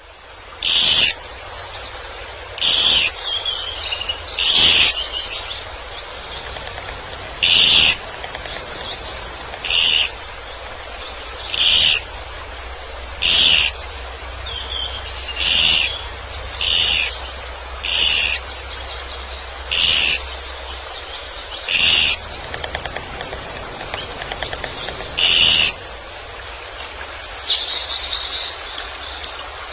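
Woodpecker calling: a short, loud, high call repeated a dozen or so times, one to three seconds apart, with softer bird calls between.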